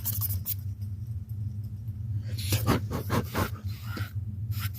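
Handling noises from unpacking: scattered rustles and light knocks, busiest about two and a half to three and a half seconds in, over a steady low hum.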